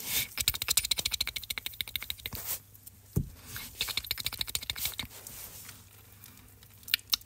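Fast run of fine scratching and clicking, a hand rubbing and tussling with kittens on a blanket, in two spells with a soft thump between them about three seconds in.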